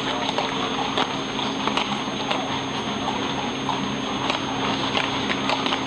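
Hooves of many horses walking on a paved street: a continuous, irregular clatter of hoofbeats.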